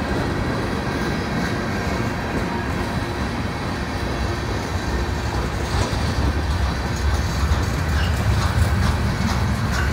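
Freight train rolling past, a steady rumble of wheels and cars on the rails. The low rumble grows heavier in the second half, with sharp clicks of wheels over the rails.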